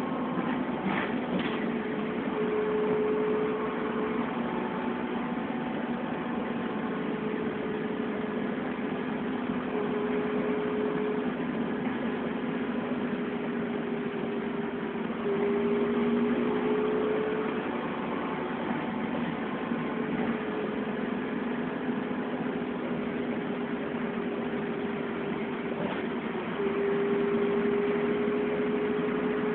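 Dennis Trident double-decker bus's engine and drivetrain running, heard from the upper deck inside the bus, with a steady hum and a whine that rises in pitch over short stretches. It grows louder about halfway and again near the end.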